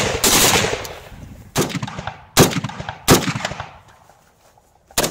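Gunfire from a POF BW20 7.62×51mm roller-delayed blowback battle rifle: four single shots at uneven intervals of roughly a second, the first with a long echoing tail.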